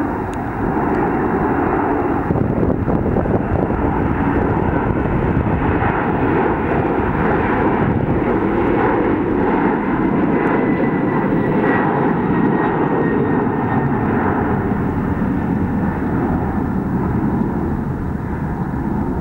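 Twin jet engines of a Boeing 767 airliner at takeoff thrust: a loud, steady roar through the takeoff roll, lift-off and initial climb. A faint high whine rides on top near the middle, and the roar eases slightly near the end as the aircraft climbs away.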